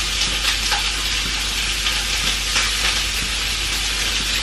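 Food frying in a pan on a gas hob: a steady sizzle with a few faint crackles.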